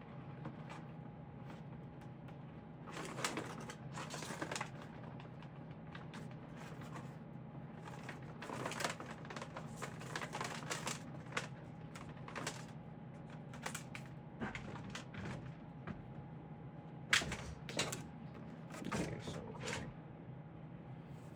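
Scattered rustles and clicks of electrical wire being handled and pulled out, over a steady low hum, with a sharper click about 17 seconds in.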